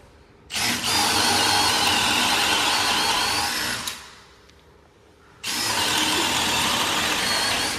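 Cordless Makita drill boring an 11/16-inch spade bit up into a red oak handrail: two runs at steady speed, the first about three and a half seconds long, then a short pause, then a second run starting about five and a half seconds in.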